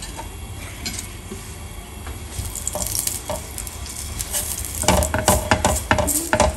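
Half a potato with oil on a fork, rubbed over a hot black iron dosa tawa to grease it so the dosa won't stick: sizzling and scraping strokes that begin a couple of seconds in and turn into a quick run of strokes from about five seconds in.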